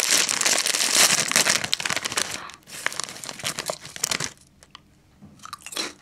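A plastic Walkers Quavers crisp packet crinkling and tearing as it is pulled open, then lighter rustling as a hand reaches in for a crisp. The crackling fades about four seconds in.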